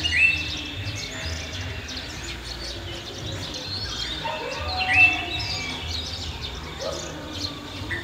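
Village bird ambience: many small birds chirping and twittering, with a louder short call that rises and then holds its pitch, heard three times, near the start, about five seconds in and at the end. A low uneven rumble runs underneath.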